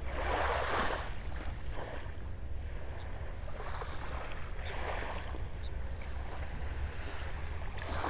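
Small waves lapping at the shoreline in soft washes every second or two, over a steady low rumble of wind on the microphone.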